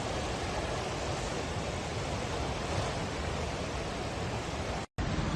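Rushing floodwater of a flash flood: a steady, dense wash of water noise. It breaks off for an instant near the end.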